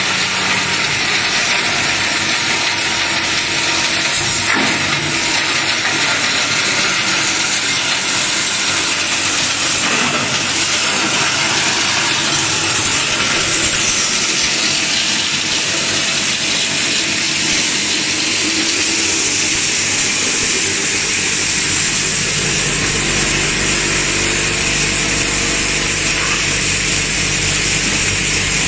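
Plastic crusher running and grinding plastic profiles: a loud, steady, dense grinding noise. About 22 seconds in, a deeper low hum joins it.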